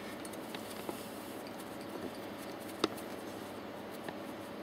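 Light metallic clicks and handling noise from gloved hands working the nuts and bolts on a reciprocating pump's head, with one sharper click near three seconds in, over a steady faint hiss.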